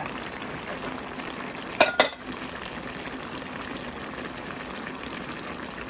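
Thick squirrel stew bubbling and sizzling steadily in a wok, with two sharp knocks close together about two seconds in.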